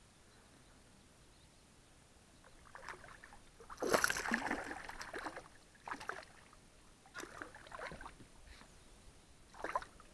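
Water splashing and sloshing at the surface close by in several uneven bursts, the loudest about four seconds in.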